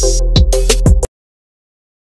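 Electronic background music with a steady drum beat and bass, cutting off abruptly about a second in.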